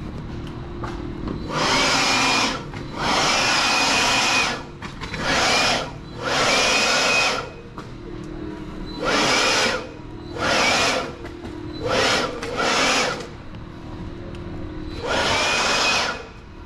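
A handheld power tool, drill-like, run in nine short bursts of about half a second to a second and a half. Each burst spins up to a steady high whine.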